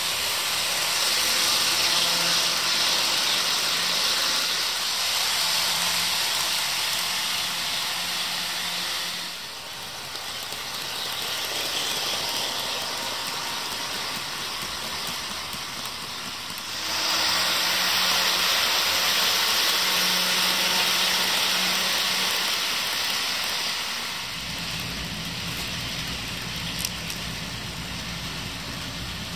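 HO scale model trains running on sectional track: a steady rushing whir of small electric motors and metal wheels on rail, with a low hum underneath. The level drops and rises at a few cuts between trains, and there is one faint click near the end.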